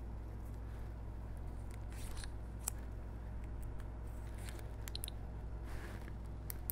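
Faint, scattered plastic clicks of the Samsung Galaxy Note 10 Lite's S Pen being pushed into its slot and clicking in and out, over a low steady hum.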